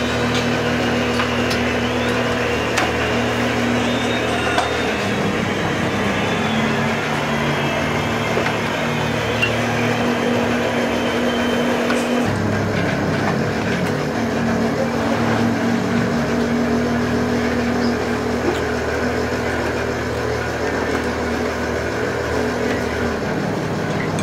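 Fishing boat's engine running with a steady low hum, its note shifting a few times, over a haze of sea and deck noise.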